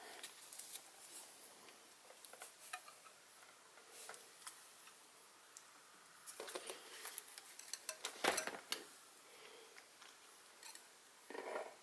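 Scattered light clicks and small clattering knocks of hard objects being handled, with a denser cluster past the middle and the loudest knock about eight seconds in.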